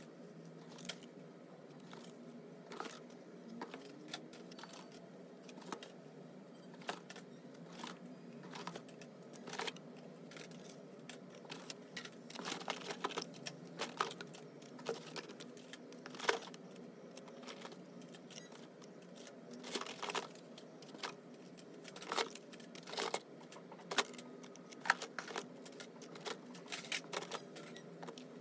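Hot Wheels die-cast cars in their card-and-plastic blister packs being unpacked and handled from a shipping case: irregular clicks, clacks and rattles. These come thickest a third of the way through and again from about two-thirds in.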